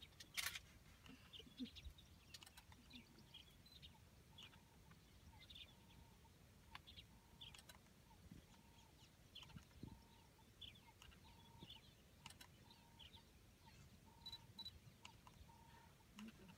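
Near silence with faint bird calls: scattered short chirps and a short note repeated steadily about every two-thirds of a second from about four seconds in. A single sharp click comes about half a second in.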